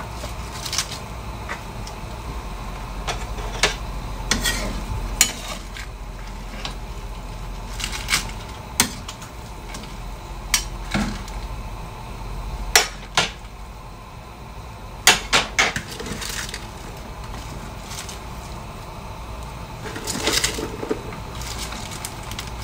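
Metal spatula clinking and scraping against a wok as vegetables and bihon noodles are tossed together, with irregular sharp clinks over a steady low hum.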